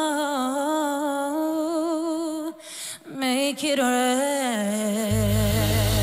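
A woman singing solo with almost no accompaniment, holding long notes with vibrato, taking a breath about two and a half seconds in, then singing a final phrase that slides down. A deep low tone comes in under the voice near the end.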